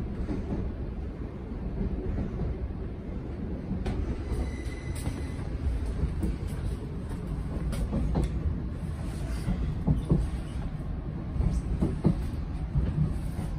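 Interior of a Thameslink Class 700 electric multiple unit running into a station: a steady low rumble and clatter from the train slowing down. A few knocks come through, and there is a brief high tone about four seconds in.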